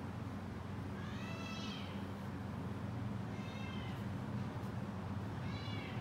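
A cat meowing three times, high-pitched calls that each rise and fall, about two seconds apart, over a steady low hum.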